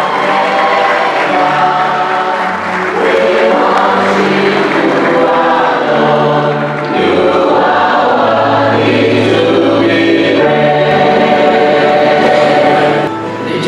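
Many voices singing together in parts, holding long chords that change every second or two.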